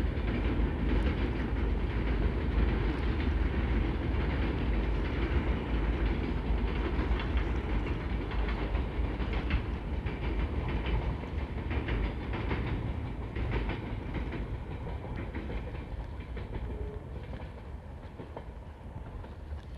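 Long passenger train rumbling and clattering across a concrete viaduct, the sound fading steadily as the train moves away.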